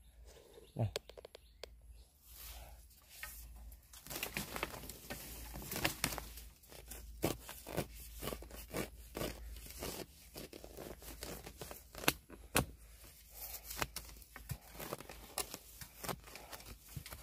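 Dry leaf litter and undergrowth rustling and crackling, with irregular sharp snaps and crunches, while a freshly found bamboo shoot is being uncovered. Sparse for the first few seconds, busier from about four seconds in.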